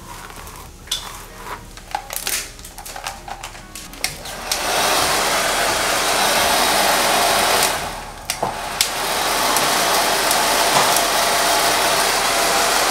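Rustling and small clicks as wet hair is rubbed with a towel, then a handheld hair dryer switched on about four and a half seconds in, blowing steadily. Near the middle it drops away for about a second with a couple of clicks, then runs again.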